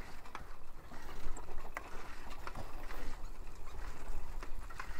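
Old steel roadster bicycle being ridden over a rough dirt track: irregular clicks and rattles from the bike over a steady low rumble.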